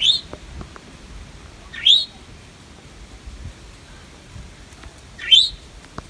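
A bird giving three loud, short upward-sliding calls, the first at the start, the second about two seconds in and the third near the end.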